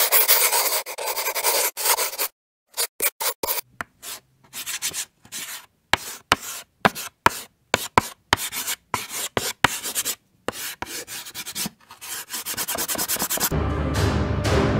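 Marker drawing on a board in quick, short scratchy strokes, several a second, with brief silent gaps between them. Music with a low drum comes in near the end.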